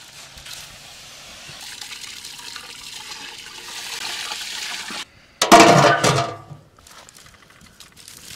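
Water poured from a vessel into a large aluminium cooking pot, splashing into it, growing louder over the first few seconds. After a short break about five seconds in, a louder gush of water lasts about a second.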